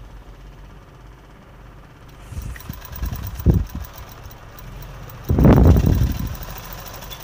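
Electric sewing machine motor humming, with a short burst of stitching about a second long a little past halfway, the loudest sound; a softer knock comes before it as the fabric is set under the presser foot.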